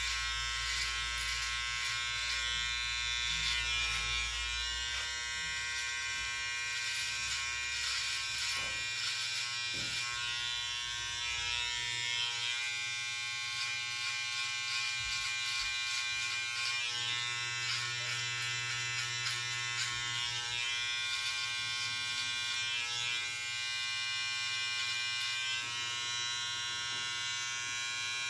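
Electric hair clipper running with a steady buzzing hum while trimming beard hair along the jawline, its upper hiss shifting as it is moved through the hair.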